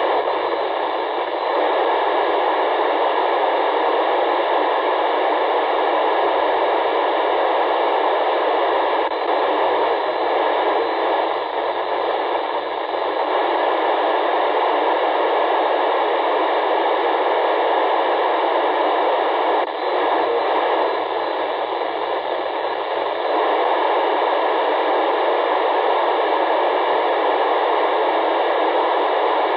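FM radio receiver hissing with open-squelch static while tuned to the SO-50 amateur satellite's downlink, with no voice getting through. The hiss dips slightly a couple of times.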